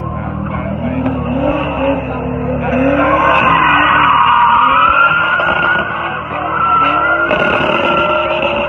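A drifting car's engine revving up and down under tyre squeal as the rear wheels slide. The squeal grows loudest from about three seconds in, dips briefly around six seconds, and picks up again a second later.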